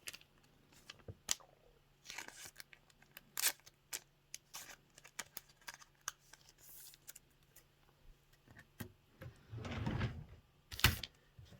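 A trading card being slid into a plastic card sleeve by hand: scattered soft plastic rustles and small clicks, with a louder rustle near the end.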